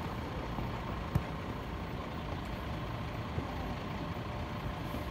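Outdoor background noise at a dirt football pitch: a steady low rumble and hiss with a faint steady hum, broken by one sharp thump about a second in.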